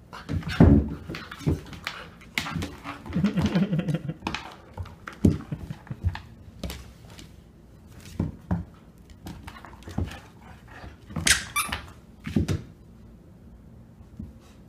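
A Border Collie/Australian Shepherd puppy playing on a hardwood floor with an ice cube: a string of knocks, clicks and thunks from paws, claws and the ice cube on the wood. The puppy gives a short low vocal sound about three seconds in. The knocks thin out near the end.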